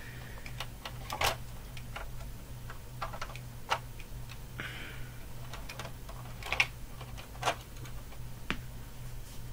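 Plastic Lego pieces clicking and clacking as they are handled and pressed together: a handful of separate sharp clicks spread out, with a short rustle about halfway, over a steady low hum.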